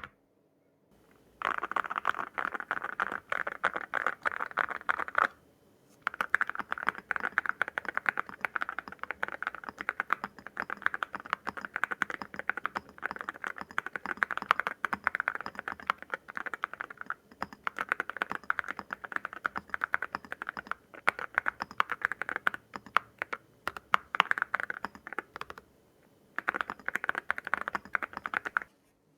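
Typing on a foam-modded Zoom75 mechanical keyboard with WS Morandi linear switches and ceramic keycaps: fast, dense key clacks in long runs, with a short pause after about five seconds and another a few seconds before the end.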